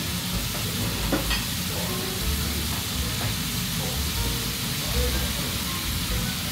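Okonomiyaki sizzling steadily on a hot teppan griddle as it is pressed flat with a metal spatula, with a faint tick about a second in.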